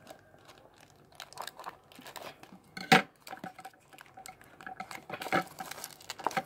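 Black plastic bag wrapping and tape on a parcel crinkling and tearing as hands cut and pull it open, with a run of crackles and a sharp snap about three seconds in.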